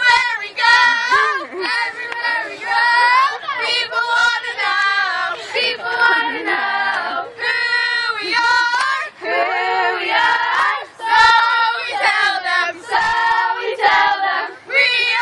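A group of girls singing a team chant together, in short rhythmic phrases.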